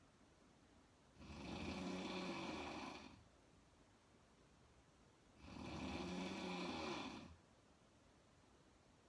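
A woman snoring in slow, regular breaths: two snores, each about two seconds long and about four seconds apart, with quiet in between.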